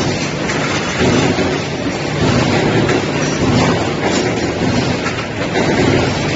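Welding arc of a robotic welder on aluminium, a steady, loud crackling hiss with no break.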